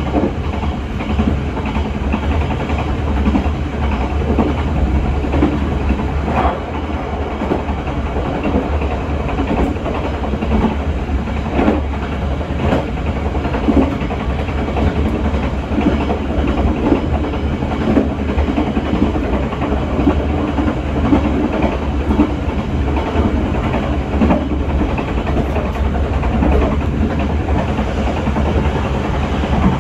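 Passenger train running along the track, heard from the rear of the last coach: a steady rumble of wheels on rails, with a few sharp clacks over rail joints or points.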